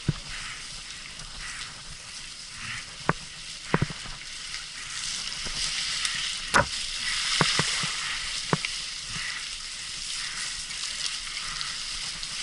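Mountain bike rolling over a rough forest trail: a steady crackling hiss from the tyres, with a scattered handful of sharp knocks and rattles.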